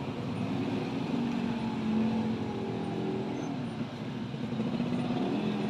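Motor vehicle engines passing on the street next to a roadside food stall, one swelling and shifting in pitch between about one and three seconds in and another coming up near the end, over steady traffic noise.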